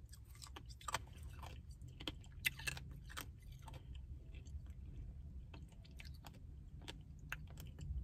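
A person chewing a mouthful of peppermint Blizzard ice cream with candy cane pieces and chocolate chunks: a string of irregular crunches and mouth clicks.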